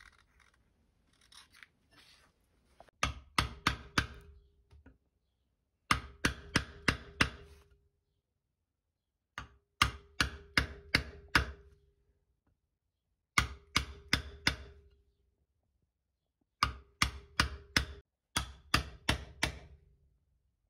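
Hammer striking a steel chisel held upright in a wooden handle blank clamped in a vise, cutting along the marked outline. The blows come in six bursts of about five quick strikes, each strike with a short metallic ring.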